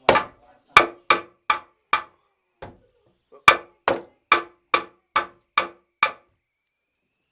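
A hammer striking plaster, about a dozen sharp blows at two or three a second with a short pause in the middle, knocking a hole through plaster and lath.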